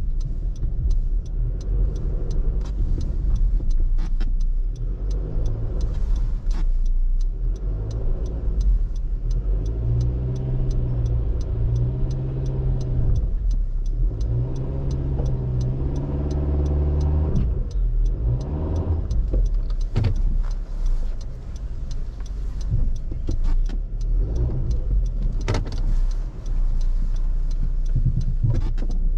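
Car engine and road noise while driving, the engine note rising in pitch several times as the car accelerates.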